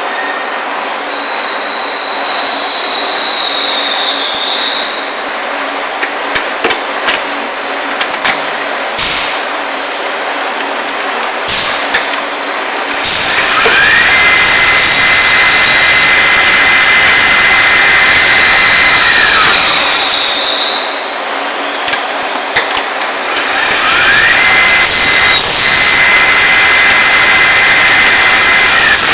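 Turret lathe running, with a steady mechanical din and a few sharp knocks in the first half. Twice it grows louder, each time with a whine that rises, holds steady for several seconds and then falls away.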